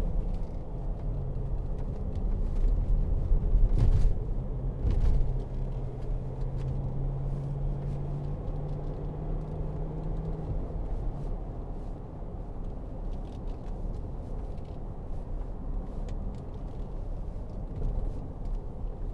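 A 2009 Range Rover 3.6 TDV8 diesel V8 being driven, with a steady low engine and road rumble; its engine hum fades out about ten seconds in. A couple of thumps about four and five seconds in come from the suspension, which gives no cracks or knocks.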